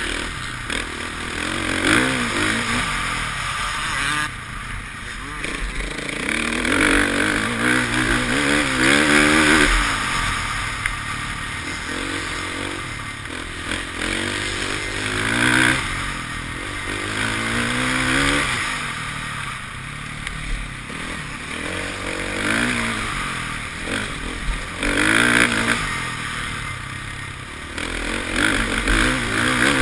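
KTM 450 XC-F dirt bike's single-cylinder four-stroke engine under hard riding, its pitch rising and falling repeatedly as the throttle is opened and shut, heard up close from a helmet-mounted camera.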